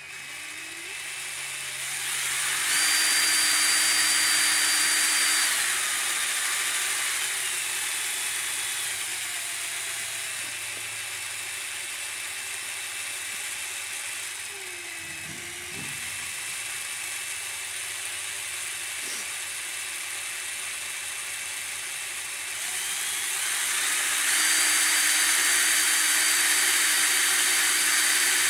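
Small model steam engine driving a brass flyball governor: a steady hiss with a thin whine whose pitch follows the speed. It steps up and gets louder about three seconds in, falls back after about five seconds, and rises again from about twenty-three seconds in as the governor speeds up.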